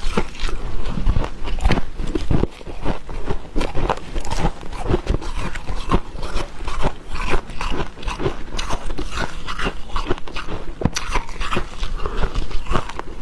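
Dry freezer frost being crunched: bitten, chewed and squeezed, giving a dense, unbroken run of squeaky crackles.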